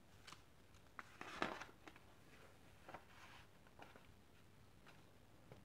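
A picture book's page being turned by hand: a short paper swish about a second in, with a few fainter paper rustles and taps around it.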